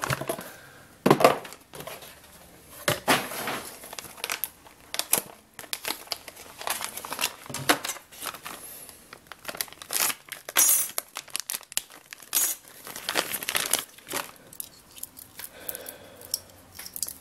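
Plastic packaging crinkling and tearing by hand in irregular bursts as a new RC speed controller is unwrapped from its bag.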